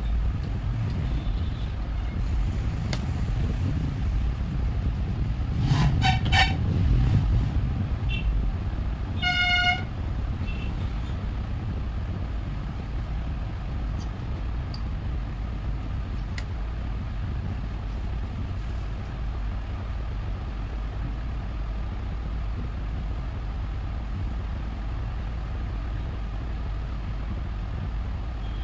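Steady rumble of road traffic with a vehicle horn honking: a few quick toots about six seconds in, then one short toot near ten seconds.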